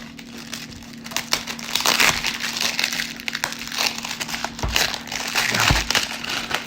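Plastic wrapping on a sealed box of 1989 Fleer baseball card packs crinkling and crackling as it is torn and pulled open, with two soft thumps a little past the middle.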